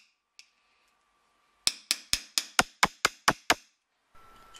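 A hammer striking a dapping punch into air-chased copper sheet on a block: a quick, even run of nine sharp metallic taps, about four a second, starting a little under two seconds in. The punch is tightening up the chased lines along the edges of the sheet.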